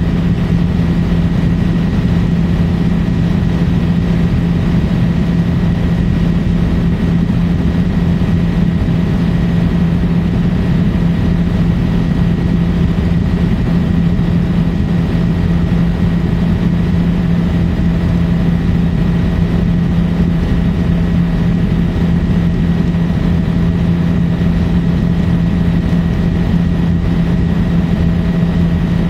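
Helicopter in steady flight, heard from on board: constant engine and rotor noise with a strong steady low hum and fainter higher whines, unchanging throughout.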